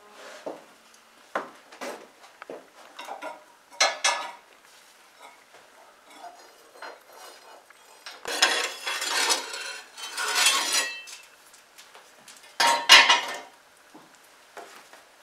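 Baking pans knocking and scraping against the brick floor of a wood-fired bake oven as the loaves are handled and pulled out: a few light knocks, then three longer clattering scrapes in the second half.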